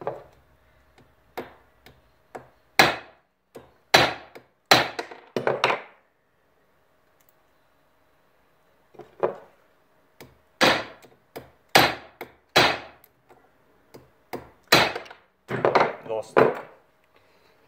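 Small hammer striking a platinum bar on the steel anvil face of a bench vise, forging it toward square wire. The blows come irregularly, several in a row, stop for about three seconds, then resume in two more runs.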